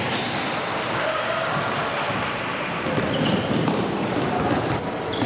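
Basketball game sounds in a large gym: a ball dribbling and players' sneakers squeaking and thudding on the hardwood floor, with voices of players and spectators echoing in the hall.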